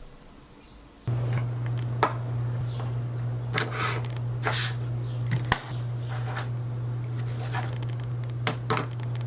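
Handling noise: rustling, scraping and sharp clicks of items being handled, over a steady low electrical hum that switches on abruptly about a second in.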